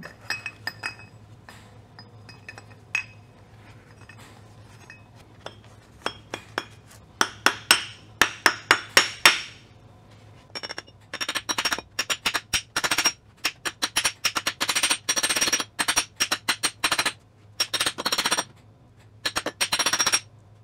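A soft-faced mallet tapping a heated synchronizer hub down onto a ZF S5-42 transmission mainshaft, each blow making the steel gear stack ring with a sharp metallic clink. The first several seconds hold only a few light taps, then come quick runs of several strikes a second.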